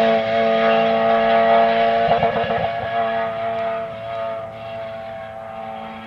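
Rally car engine running hard at high revs with a steady note and a brief rough patch about two seconds in. It fades as the car drives away.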